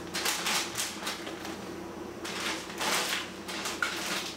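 Plastic zip-top bags crinkling and rustling in quick bursts, about three times, as pieces of raw meat are dropped into them by hand.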